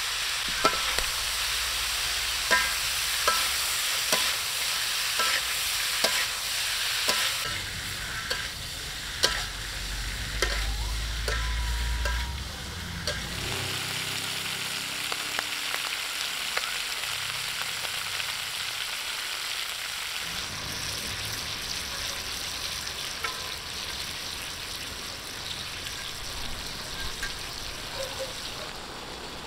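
Chicken ovaries and green peppercorns sizzling as they are stir-fried in a metal wok, with a steady hiss. For about the first dozen seconds a utensil clicks and scrapes against the wok every second or so; after that the sizzle goes on with few knocks.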